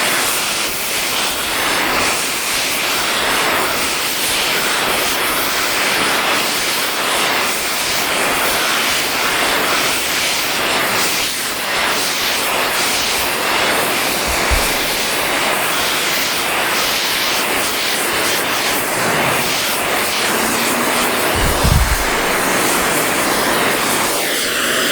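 Steady, loud hiss of a gas flame burning in a metalworking shop, with two dull low thumps partway through.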